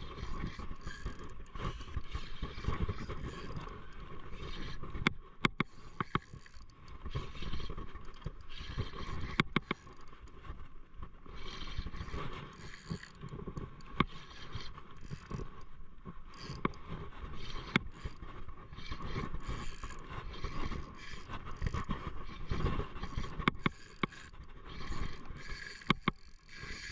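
Spinning fishing reel and rod being worked by hand: scraping handling noise with many sharp, irregular clicks over a steady hiss.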